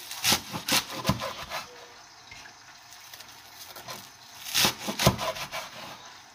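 Cleaver chopping through a thick bunch of spring onions (Korean jjokpa) onto a wooden cutting board, crisp cuts through the stalks ending in knocks on the board. There is a quick run of four or so chops in the first second and a half, then another burst of chops about four and a half seconds in.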